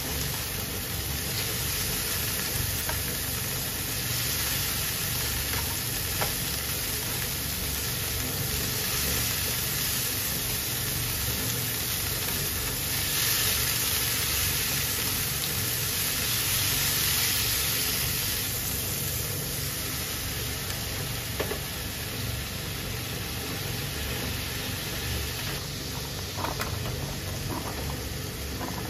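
Sliced onions sizzling in oil in a non-stick frying pan, stirred and scraped with a spatula, over a low steady hum. Near the end diced carrots go into the pan with a few light knocks.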